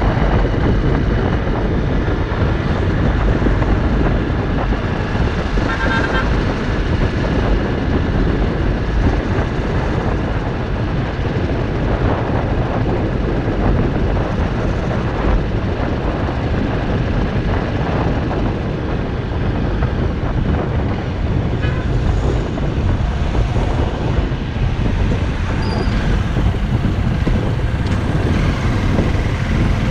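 Honda CRF250L's single-cylinder engine running at road speed under heavy wind and road noise, slowing gradually through traffic. A vehicle horn gives a short toot about six seconds in.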